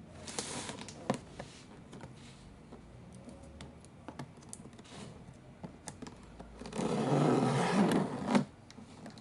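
Packaging being handled during an unboxing: scattered clicks and taps, with a louder rustling stretch of about a second and a half near the end.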